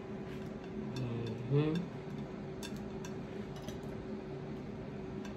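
Light clicks and taps of tomato pieces and hands against a plate as a salad is assembled, over a steady low hum. A short rising vocal hum about a second and a half in.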